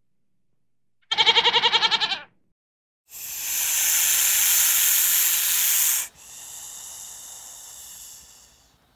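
A goat gives one quavering bleat lasting about a second. Then a snake hisses: a loud, steady hiss for about three seconds that drops suddenly to a quieter hiss and fades out.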